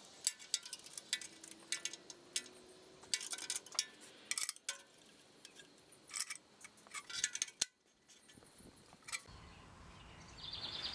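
Metal hand tools clinking and clicking: a wrench and socket picked up, set down and worked in short irregular bursts of sharp clicks. Faint bird chirps come in near the end.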